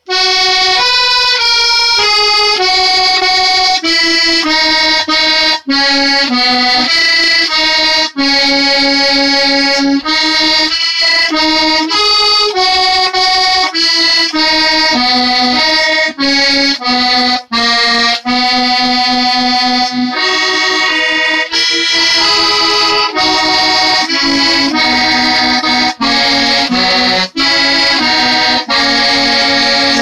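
A tune played solo on a button-key melodeon: a melody over steady lower chord notes, with short breaks every second or two.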